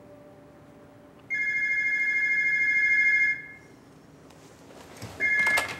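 Electronic office telephone ringing with a two-tone, slightly fluttering ring: one ring of about two seconds, then a second ring starting near the end.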